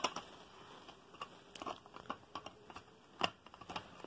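Hard plastic pieces of a toy train station model clicking and knocking as they are handled and pressed into place, in scattered irregular taps with the sharpest knock about three seconds in.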